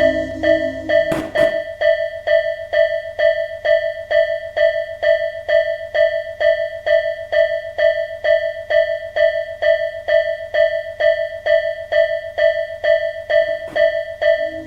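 Railway level crossing warning bell ringing steadily, with about two strikes a second. A low rumble underneath stops about a second and a half in and comes back just before the end.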